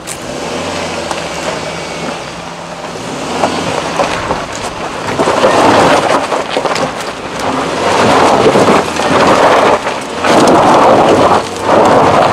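Suzuki Jimny climbing a steep rocky track: the engine pulls under load while the tyres scrabble on loose dirt and stones. About halfway through, the noise of spinning wheels and flung gravel grows loud and comes in repeated surges.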